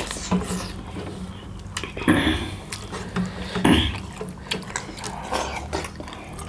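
Close-up eating sounds of kodo millet dhido and chicken curry being eaten by hand: wet mouth noises, chewing and swallowing, with scattered small clicks and two louder bursts about two seconds in and near the four-second mark.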